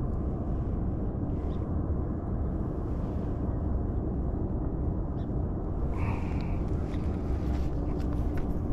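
Steady low outdoor rumble with no clear single source. A faint steady hum joins about five seconds in, and a short high tone sounds about six seconds in.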